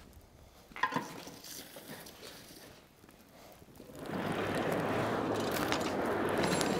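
A single knock about a second in; then, about four seconds in, a steady rushing of air sets in as the coal forge's blower drives the fire and the flames flare up.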